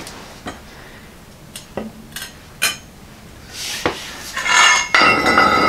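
Hand EMT conduit bender and metal tube being worked on a concrete floor: a few light metallic clicks, then about three and a half seconds in a rasping scrape, followed near the end by a louder metal scrape with a ringing tone.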